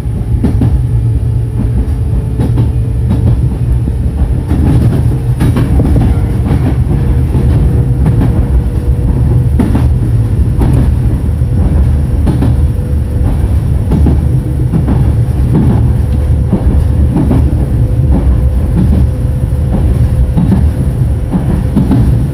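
Yoro Railway electric train running, heard from behind the driver's cab: a steady low rumble with scattered clacks of the wheels over rail joints. A steady hum comes in about four seconds in.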